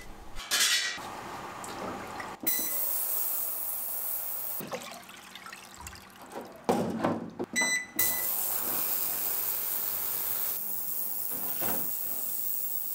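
Digital ultrasonic cleaner beeping at a button press and running with a steady high hiss. The hiss stops for a few seconds while an engine block is lowered into the water-filled tank with splashing and sloshing, then the cleaner beeps and starts hissing again.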